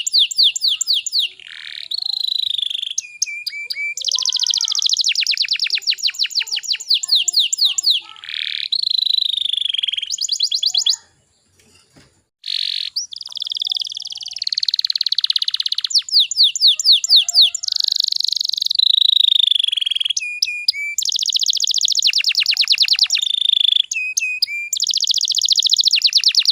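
Domestic canary song: fast rolling trills of rapidly repeated notes, mixed with sweeping whistled phrases. The song breaks off for about a second and a half near the middle, then resumes.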